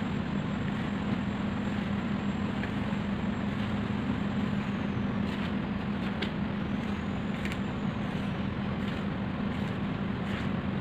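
A steady mechanical hum and hiss, with a few faint taps and scrapes of a plastic spatula folding batter in a plastic mixing bowl.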